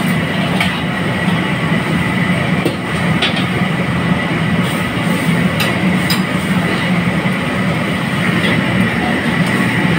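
Commercial wok range's gas burner running with a steady, loud rush under a steaming wok, with a few short clinks of a metal ladle against the wok.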